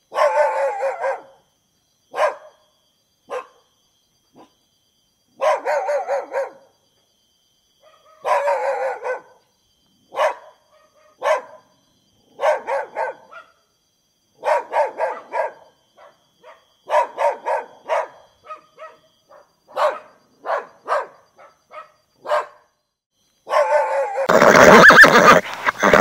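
A dog barking in short, irregular bursts, sometimes single barks and sometimes quick runs of several. Near the end a loud horse whinny starts and is the loudest sound.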